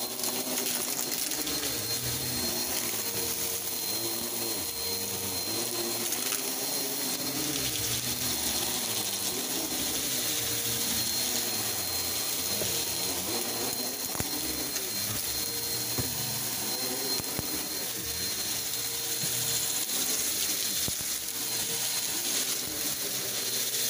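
Bissell PowerForce bagless upright vacuum running on carpet while it is pushed back and forth: a steady motor whine with rushing air, its lower pitch wavering slightly.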